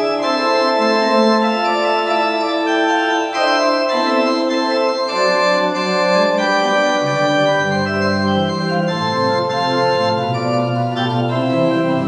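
Organ playing slow, held chords that change about every second, with deep bass notes coming in about two-thirds of the way through.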